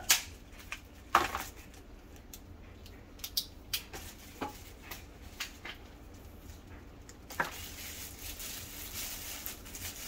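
Hard plastic parts of a microwave bottle sterilizer knocking and clicking as they are handled, about seven separate sharp knocks. From about seven seconds in, a small plastic bag rustles as it is opened.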